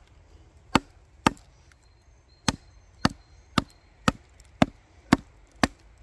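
A wooden baton knocking on the spine of a Joe Vogel Evo-X fixed-blade knife, driving it through a knotty split log: nine sharp knocks, two near the start and then, after a short pause, seven more at about two a second.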